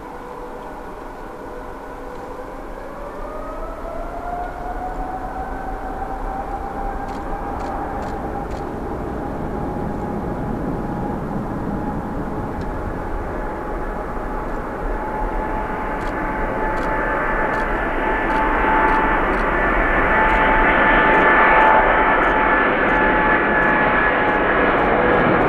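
Boeing 777-300ER's GE90-115B turbofans spooling up. Their whine rises in pitch a few seconds in, then holds steady while the engine sound grows steadily louder.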